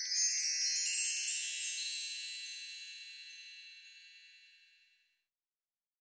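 Intro chime sound effect: a cluster of high ringing tones like a wind chime, fading away over about five seconds.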